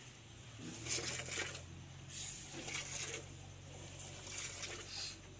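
Milk squirting from a cow's teat into a plastic jug during hand milking: short hissing squirts, about one a second.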